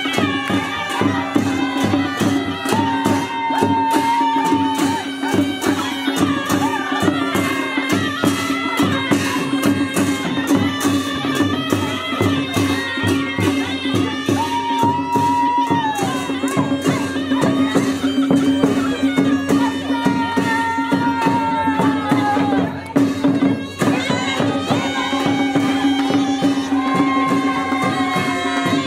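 Nepali panche baja band playing live: shrill sahanai reed horns carry a wavering, gliding melody over a steady held drone, with jhyali cymbals clashing and drums beating fast underneath. The playing dips briefly about three-quarters of the way through, then carries on.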